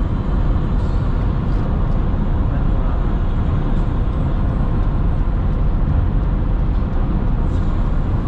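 Steady road noise inside a car cruising on an interstate highway: tyres on the pavement, engine and wind, heaviest in the lows.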